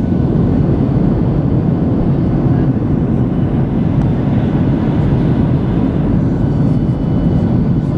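Steady low rumble of a vehicle running, with a faint even engine hum and no change in pitch.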